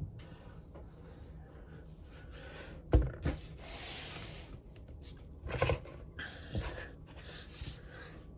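Handling noise as a hard plastic novelty drink cup is set down on a display turntable. A sharp knock comes about three seconds in, with a second one right after. About a second of rubbing and sliding follows, then a few lighter knocks.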